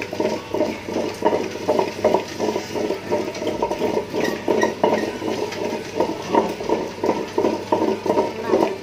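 Thick vada batter of ground dal and rice being stirred in a stainless steel bowl: quick, even wet strokes, about three or four a second.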